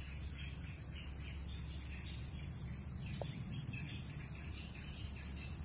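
Small birds chirping in many short, quick calls, over a steady low rumble.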